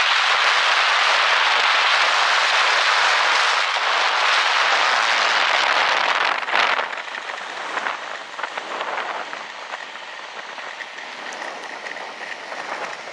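Wind rushing over the microphone of a camera carried on a moving electric skateboard, a loud steady rush. About six and a half seconds in it drops to a quieter rustle with a few faint knocks.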